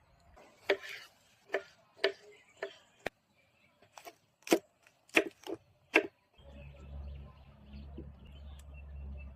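Knife chopping on a cutting board: about nine separate strokes at an uneven pace over the first six seconds. A steady low hum comes in after about six seconds.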